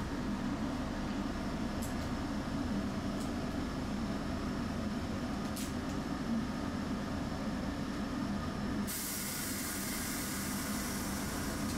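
Tram running, heard from inside the cabin: a steady low rumble of the car on the rails. About nine seconds in, a loud steady hiss starts and holds.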